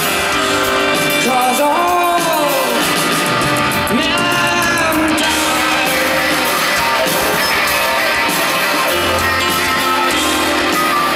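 A live pop-rock band playing, with a male lead voice singing over it.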